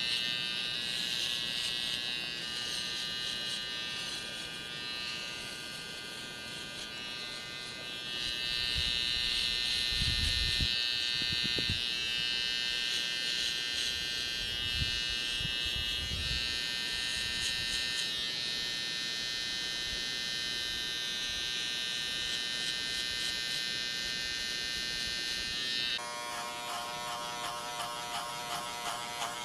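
Electric hair clippers buzzing steadily while cutting a skin fade, growing louder at times as they come closer, with a few low thumps in the middle. Near the end the buzz changes to a quicker, pulsing tone.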